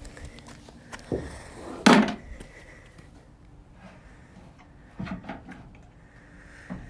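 A few separate knocks and bangs, the loudest a sharp bang about two seconds in, with a small cluster of knocks about five seconds in.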